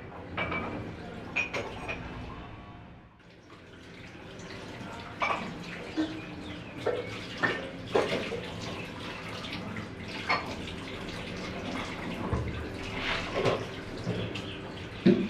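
Dishes being washed by hand at a kitchen sink: water running from the tap, with scattered clinks and knocks of plates, steel cups and glasses being handled.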